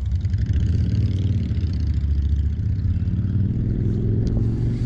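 A vehicle engine running steadily, its pitch rising slightly late on.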